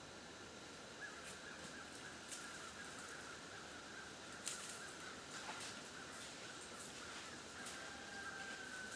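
Quiet woodland ambience: a steady hiss with a few scattered sharp clicks or snaps, the loudest about four and a half seconds in, and a faint held high note near the end.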